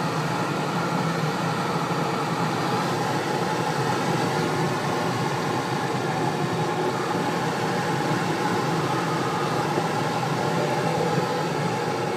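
Airflow rushing over a glider's canopy in flight, heard inside the cockpit as a steady, even hiss.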